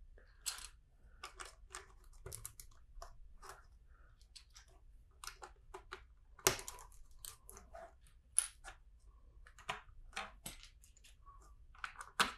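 Plastic LEGO bricks clicking and clacking as pieces are handled, sorted and pressed together: irregular small clicks, with a couple of louder clacks about halfway through.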